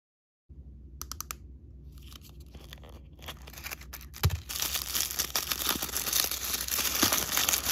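A plastic blind-bag wrapper being torn open by hand, then the crinkly paper wrapping inside being peeled and crumpled. A few soft crackles come first; about four seconds in a sharp snap, after which the crinkling grows louder and denser.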